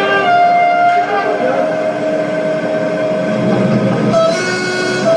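Recorded train sound effect played through loudspeakers: a train rumbling in a station, with several steady whining tones over the noise that change pitch as it goes.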